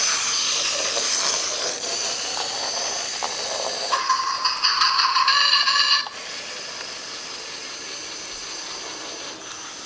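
Zhu Zhu Pets hamster toy's small battery-powered motor whirring as it drives its wheels across a wooden floor. About four seconds in, a louder held tone sounds for about two seconds, and after that the whirring goes on more faintly.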